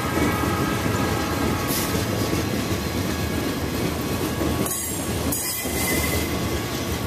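A freight train of flatcars loaded with tractors rolling past close by: a continuous rumble and clatter of steel wheels on rail, with a thin steady squeal from the wheels over it.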